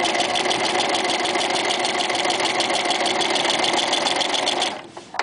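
Toyota FSG325 sewing machine, fitted with a walking foot, stitching a long zigzag through layered fabric at a rapid, even rhythm. It stops abruptly near the end, followed by a faint click or two.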